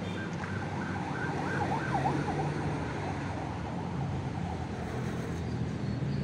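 An engine running steadily, a low hum, with a few short faint chirps in the first couple of seconds.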